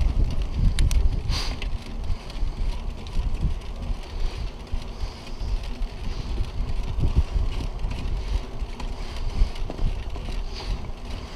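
Wind buffeting the microphone, with rumbling road noise from a recumbent trike riding along a road.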